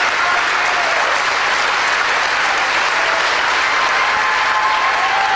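Audience applauding steadily, with a few voices calling out above the clapping.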